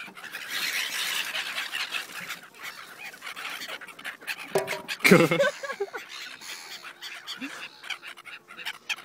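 Seagulls calling, with one loud squawk about five seconds in and fainter calls after it.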